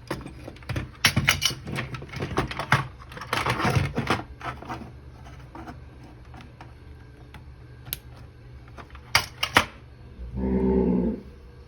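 Rapid clicking and clattering of the repaired inverter board and its plug-in connectors being handled and fitted to the Samsung front-load washing machine, with a few separate clicks later. Near the end a steady tone sounds for about a second.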